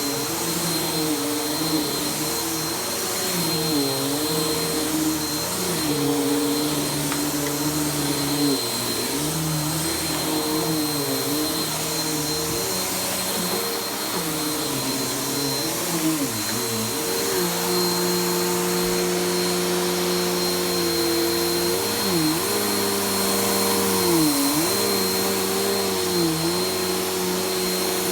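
Vacuum cleaner running on carpet, its motor pitch dipping and recovering every second or two as it is pushed and pulled, with a steady high whine over it. The pitch holds steadier for a few seconds past the middle.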